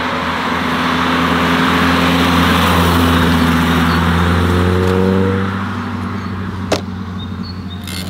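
A modified Volkswagen Golf's engine and exhaust running under load, its pitch slowly rising, then easing off about five and a half seconds in. A single sharp crack comes about a second later.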